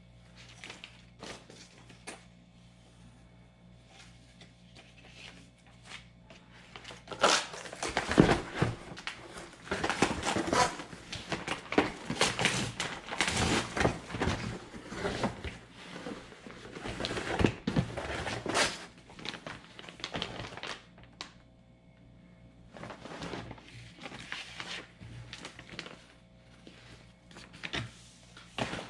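Plastic bags around acrylic side window deflectors crinkling and rustling as they are handled and lifted out of a cardboard box, with occasional knocks. It starts about seven seconds in, pauses briefly, then resumes near the end.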